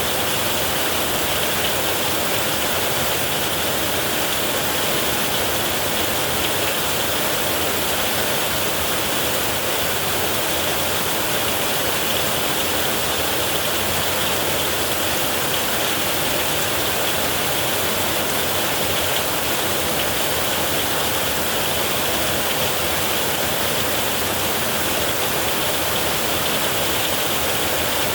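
Heavy rain falling on a metal roof: a steady, dense hiss that neither rises nor falls, with no thunder.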